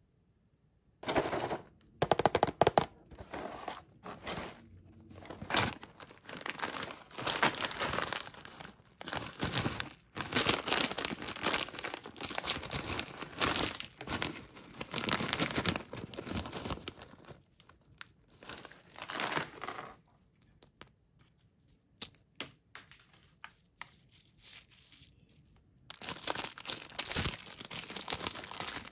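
Plastic and foil snack wrappers crinkling and being torn open by hand in irregular bursts, including a foil bag of cheese crackers being rustled through and a clear cellophane cookie wrapper being crinkled.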